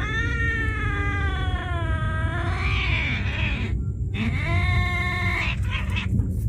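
A cat yowling: two long, drawn-out wavering yowls, the first lasting over three seconds and a second shorter one after a brief pause.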